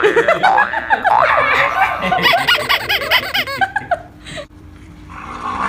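A man and a boy laughing together, with a quick run of rhythmic laughs in the middle that dies down about four seconds in.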